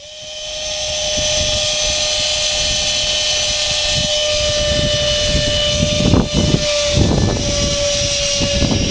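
Electric ducted fan of an RC F9F Panther jet (stock motor and fan on a 3S lipo) running at steady power, giving a steady high whine, with wind buffeting the microphone in low gusts.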